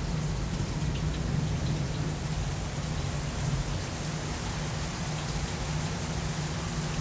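Steady rain in a thunderstorm sound effect, an even hiss that holds level throughout, with no distinct thunderclap.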